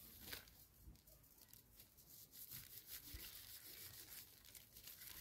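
Faint rustling and rubbing of dried Chinese sumac (Rhus chinensis) fruit clusters being stripped by hand, with small seed ticks into a woven bamboo basket.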